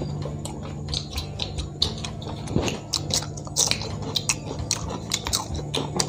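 Close-miked eating sounds: crisp fried fish being torn apart by hand, bitten and chewed, with many small irregular crackles and crunches.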